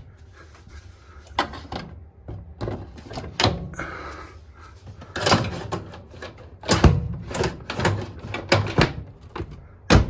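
Plastic clicks and knocks as a washing machine's lower access panel is slid along its rails and snapped back into place. About ten separate sharp taps, the loudest about seven seconds in and right at the end.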